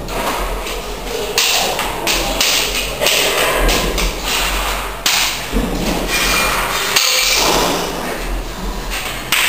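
Rapid, irregular slaps and thuds of hands and forearms striking and blocking each other in a two-person Jeet Kune Do hand-trapping drill.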